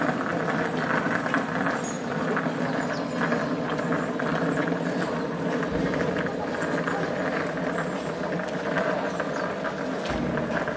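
Steady outdoor background sound along a busy footpath, with people's voices heard indistinctly.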